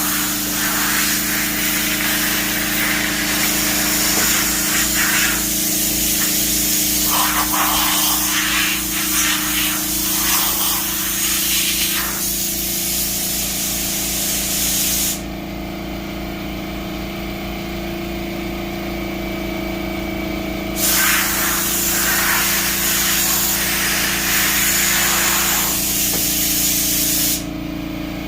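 Compressed-air blow gun blasting sanding dust off a car's body. It runs as a loud, steady hiss with two pauses, about halfway through and near the end, over a steady low hum.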